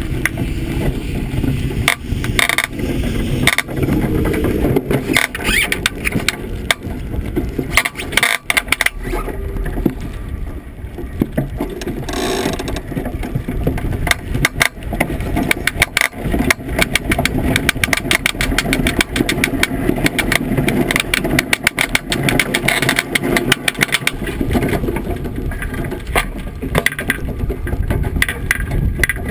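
Iceboat under way on the ice: a loud, continuous scraping rumble from the runners, with dense rattling clicks and knocks from the boat and its rigging.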